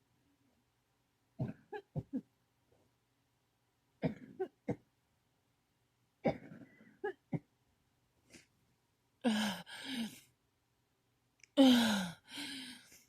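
A person coughing in a fit: bouts of two to four short coughs about every two seconds, the last two bouts louder and longer.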